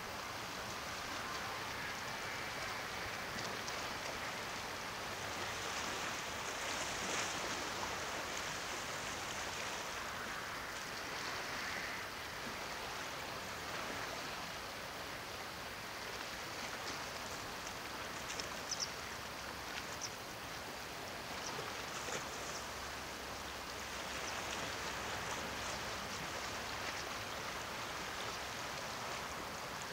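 Small Black Sea waves lapping and washing against shoreline rocks: a steady wash that swells gently now and then, with a few short clicks just past the middle.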